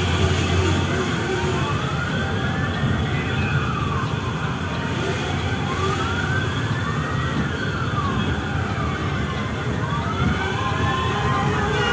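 Police siren wailing in a slow rise and fall, one sweep about every four seconds, over the low running of the escorting police motorcycles' engines.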